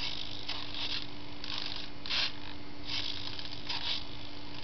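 Rudder servo of a foam RC AVRO Arrow model whirring in a series of short bursts, about one every half second, as the rudder is swung back and forth in a control check.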